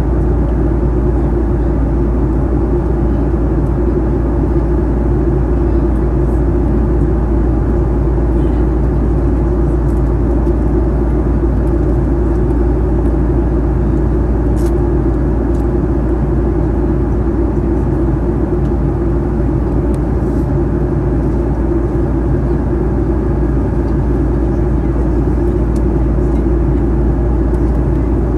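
Steady drone of a Boeing 737-800's CFM56-7B turbofan engines and rushing airflow, heard inside the cabin from a window seat beside the wing, in flight.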